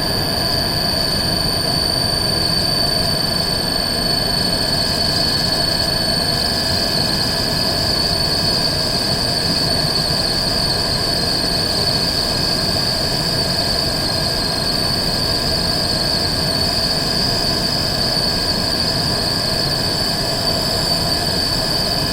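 AC motor running with a steady high-pitched whine over a lower hum, unchanging throughout: the faulty motor noise the title presents as a problem.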